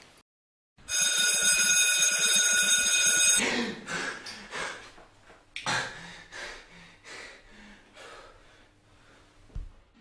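A loud, steady alarm ringing for about two and a half seconds after a moment of silence, then cutting off abruptly. It is followed by a man's heavy, gasping breaths as he wakes from a nightmare, fading toward the end.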